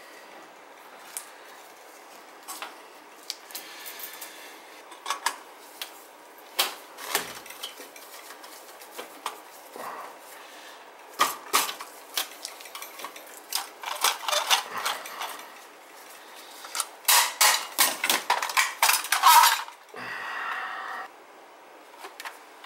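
Irregular metallic clicks, clinks and scrapes as a screwdriver works on the metal housing and wiring of a boiler's relay control. The clicks come in bunches and are busiest near the end, when the control is taken off the boiler.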